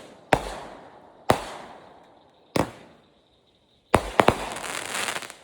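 Consumer fireworks going off: three sharp bangs roughly a second apart, each trailing off in a fading hiss, then about four seconds in a quick cluster of three bangs followed by a dense fizzing shower that cuts off near the end.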